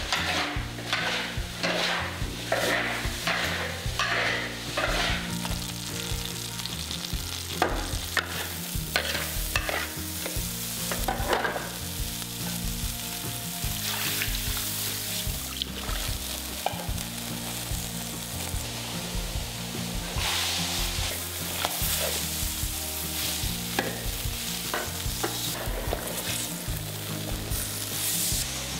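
A spatula scrapes and stirs chillies, garlic and green peppers sizzling in a wok, with repeated strokes through the first dozen seconds or so. Later, water poured into the hot wok sets it hissing, and it goes on bubbling and sizzling as it heats.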